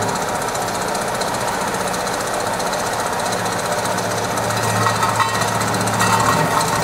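Road-repair machine running steadily: a rapid, even hammering rattle over a low engine hum.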